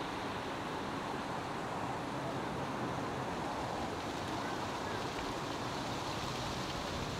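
Steady, even rushing noise of a distant Airbus A319-111's CFM56-5B turbofans as the airliner comes in on final approach.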